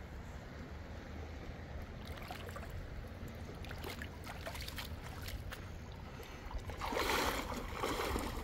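Steady rush of a fast-flowing river, with scattered small clicks and knocks, and a louder burst of noise about seven seconds in.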